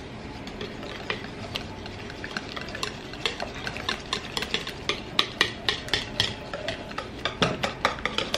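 Metal wire whisk beating a thick egg-and-flour batter in a bowl: a wet swishing with rapid clicking as the wires tap against the bowl, the clicks coming faster and louder after the first few seconds.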